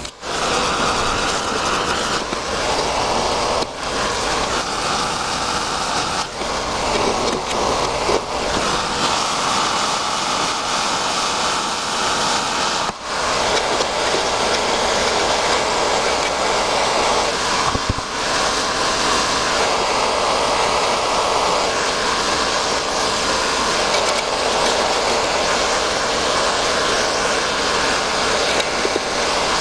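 Handheld gas torch flame roaring steadily, heating the disc sander's metal disc to soften old pad adhesive. The sound breaks off briefly several times.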